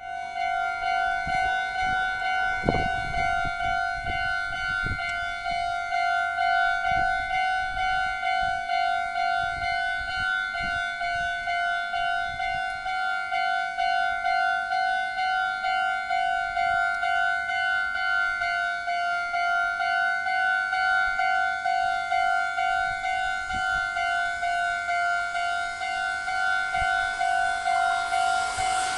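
Japanese railway level-crossing warning bell ringing, an electronic ding repeating steadily about twice a second, signalling that a train is approaching.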